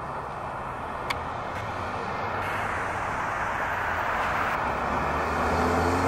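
Urban road traffic noise that slowly grows louder as a vehicle draws near, its low engine hum rising slightly in pitch toward the end, with one short click about a second in.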